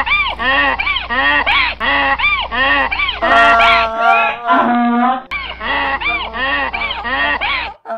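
Donkey braying: a fast run of rising-and-falling hee-haw calls, about two a second, with a stretch of longer, steadier calls in the middle before the quick calls resume.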